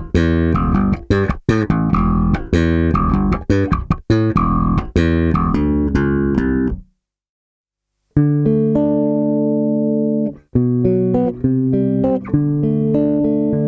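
Warwick Corvette six-string bass played direct, on its active preamp with both pickups and treble and bass cut. A run of quick plucked notes stops dead about seven seconds in. After a pause of about a second and a half come long ringing notes, several at once.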